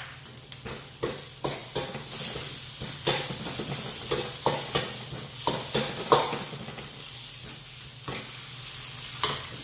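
Sliced onions and garlic sizzling in hot oil in a wok, with a metal ladle scraping and knocking against the wok as they are stir-fried.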